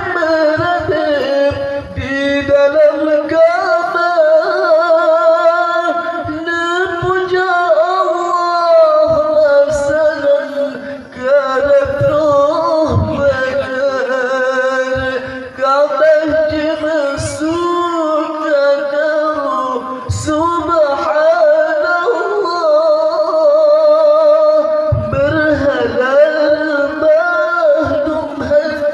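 A man singing an Islamic devotional song (sholawat) in praise of the Prophet Muhammad, amplified through a microphone, in long held notes that waver and wind up and down in pitch.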